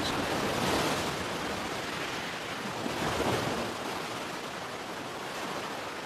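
Ocean surf washing against the shore: a steady rush of water that swells slightly and eases.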